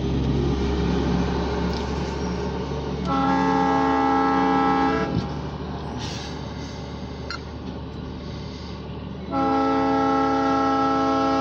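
Freight locomotive air horn sounding two long blasts of several notes at once, each about two seconds, the second starting some four seconds after the first ends. Under them is a steady low rumble from the passing grain hopper train.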